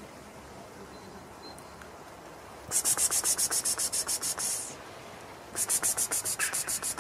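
Two bursts of fast, even rasping strokes, about ten a second, each lasting about two seconds, the second starting about a second after the first stops.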